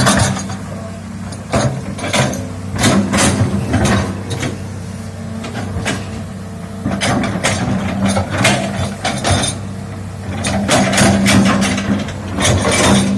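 Hitachi excavator's diesel engine running steadily under load, with repeated sharp cracks and knocks from the machine working the ground and vegetation.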